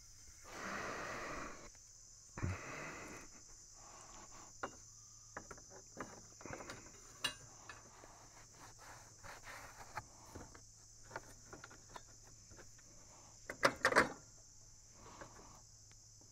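Insects chirring steadily in the background. Over them come scattered clicks, knocks and rustles as the band-saw blade is handled and fitted over the wheels of a Norwood portable sawmill, with a short cluster of louder knocks near the end.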